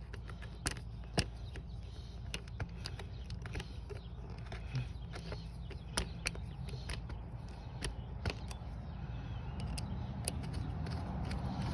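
Scattered clicks and taps of a rubber breather hose and its hose clamps being pushed on and worked by hand in an engine bay, over a steady low hum.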